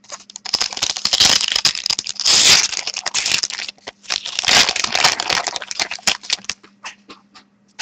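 Pack of SPx hockey trading cards being torn open by hand: the wrapper crinkles and crackles in two dense stretches, followed by a few lighter clicks as the cards are handled.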